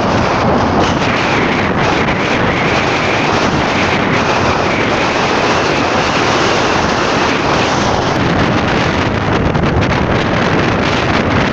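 Loud, steady rush of wind buffeting a phone microphone on a moving motorcycle, mixed with the motorcycle's running engine and road noise.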